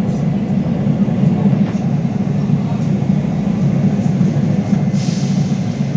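A LiAZ-5280 trolleybus in motion, heard from inside the cabin: a steady low rumble, with a short hiss about five seconds in.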